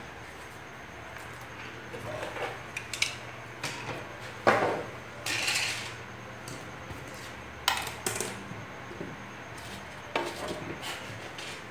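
Small craft items being picked up and set down on a tabletop: a scattering of light knocks and clicks from plastic things handled by hand, with a short rustle about five seconds in.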